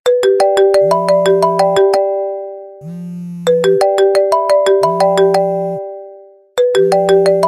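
An iPhone ringing on vibrate and ringtone together. A quick, repeating marimba-like ringtone melody restarts about three and a half and six and a half seconds in. The vibration motor buzzes for about a second every two seconds under it.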